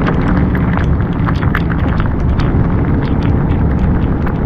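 Wind buffeting the camera's microphone: a loud, steady low rumble with scattered small ticks and crackles over it.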